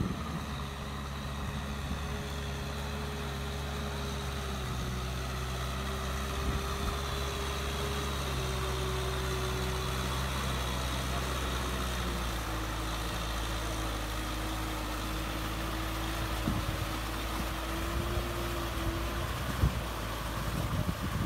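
Kubota farm tractor's diesel engine running steadily under load as it pulls a rotary tiller through a flooded rice paddy. The engine note drops slightly about halfway through, and a few short knocks come near the end.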